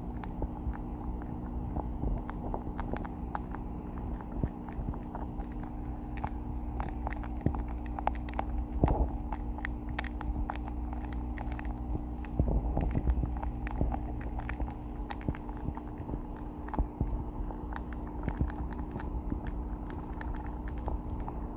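Muffled underwater pond sound picked up by a submerged phone: a steady low hum and rumble with frequent small clicks and taps throughout.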